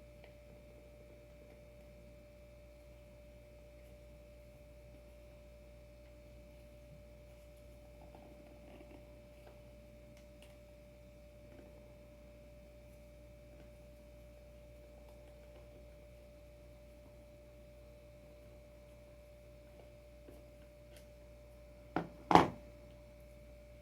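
Faint steady hum with a thin high whine, then near the end two sharp knocks a fraction of a second apart, the second much louder: surfskate adapter hardware being handled against the board.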